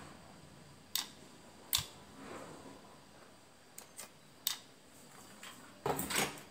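Scattered light clicks and taps of tweezers, wires and a soldering iron being handled against a circuit board, with a sharper click just before two seconds and a quick flurry of clicking near the end.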